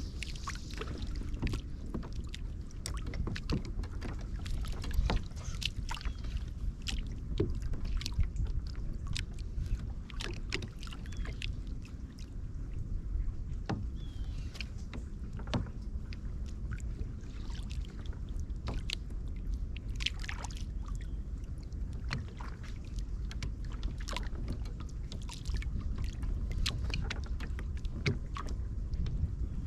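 Kayak on the water: a steady low rumble of water and wind against the hull, with many small irregular clicks, taps and splashes.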